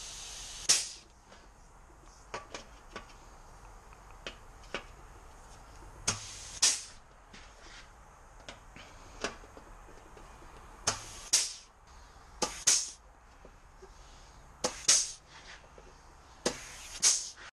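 Handheld air tool worked on the edge of a steel body patch panel in short bursts of about half a second, six or so of them, often two close together. Faint clicks and taps between the bursts.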